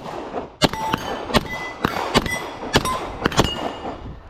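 A string of about five 9mm pistol shots from a Beretta M9 fired at steel targets. Each shot is followed by the ringing clang of a steel plate being hit.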